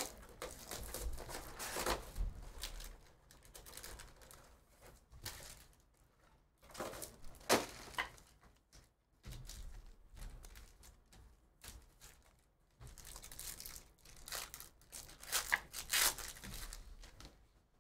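Plastic and foil wrappers crinkling and tearing in several separate bursts: shrink-wrap coming off a hobby box of trading cards, and a foil card pack being torn open near the end.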